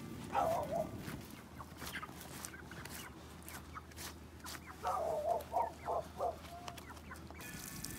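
Chickens clucking: one short cluck near the start, then a quick run of five or six clucks about five seconds in.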